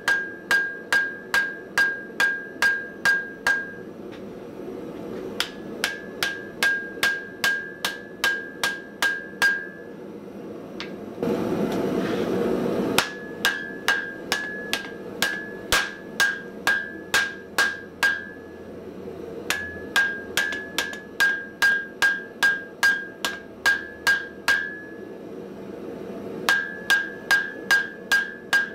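Hammer blows on a glowing Damascus steel sword billet on the anvil, about two and a half strikes a second, each with a bright ring. The blows come in runs broken by short pauses while the blade is forged. Near the middle, about a second and a half of rushing noise fills one pause.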